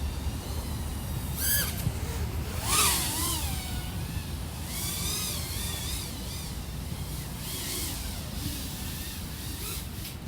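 Motors of a 3.5-inch FPV quadcopter (iFlight XING 1504 3100KV) whining, the pitch gliding up and down as the throttle changes, with several short rushes of air noise.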